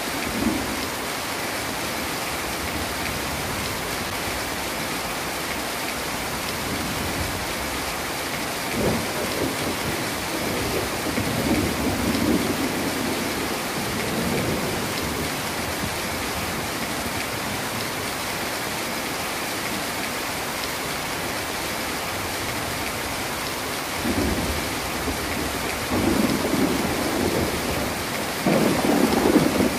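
Heavy rain falling steadily, with rolls of thunder rumbling about a third of the way in and again, building, near the end.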